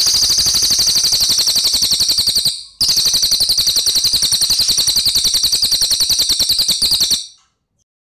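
Cililin (crested jay) giving a loud, tight rolling trill of fast, even pulses. It breaks off about two and a half seconds in, starts again a moment later, and stops abruptly about seven seconds in.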